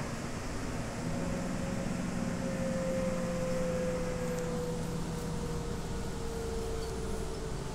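Interior running noise of a New Flyer DE60LFR diesel-electric hybrid articulated bus with an Allison EP50 hybrid drive. A steady drive hum is overlaid by a whine that falls slowly in pitch over several seconds, with a lower hum dropping away about six seconds in.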